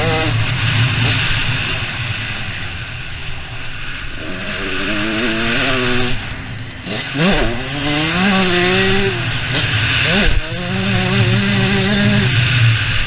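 Husqvarna CR125 single-cylinder two-stroke motocross engine under hard riding, revving up as the throttle is opened, with two sharp dips in pitch as it backs off and winds up again. It is heard from a helmet-mounted camera, with wind rush over it.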